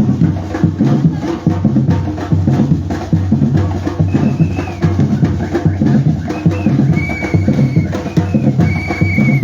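Batucada drum group playing a fast, steady rhythm of bass drums and snares. A few short, high, held notes sound over the drumming in the second half.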